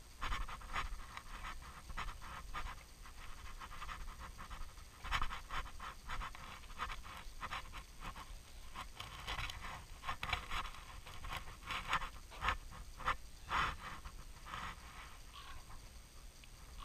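A hiker breathing hard while walking, with steps on a wooden boardwalk and clothing rustle.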